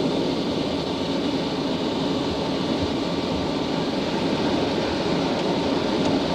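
Steady rumble inside the cockpit of a Concorde slowing on the runway in its landing rollout, from its engines and the wheels rolling on the runway.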